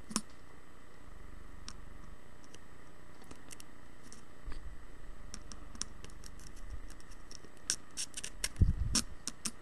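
Soldering iron tip and a solid wire scraping and ticking against a solder joint on a circuit board, working a heated plated hole to push out broken wire strands. Scattered light clicks and scratches, growing busier in the second half, with a dull knock among a cluster of clicks near the end.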